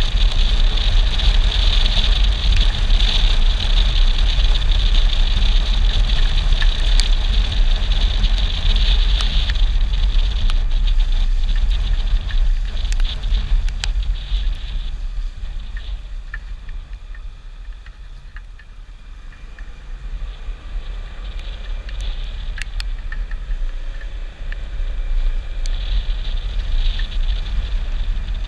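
Yamaha XMAX 300 scooter being ridden on a wet road: a steady low rumble of wind and engine with a hiss from the wet tyres. It eases off for a few seconds past the middle, then builds again near the end.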